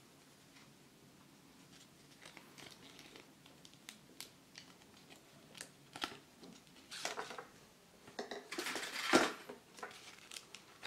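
Small plastic toy pieces clicking and tapping as they are handled and set down, then a paper sticker sheet rustling, loudest near the end.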